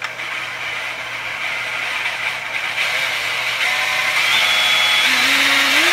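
Electric drill running steadily, spinning a Mopar distributor shaft so its magnetic pickup makes a signal. The whine grows slowly louder and climbs in pitch about five seconds in as the drill speeds up.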